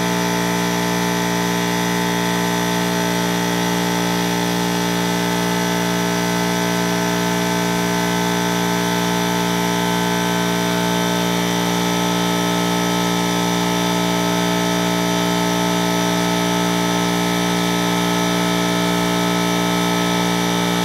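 Power drill running steadily at constant speed, spinning a cylinder hone inside the engine's cylinder bore.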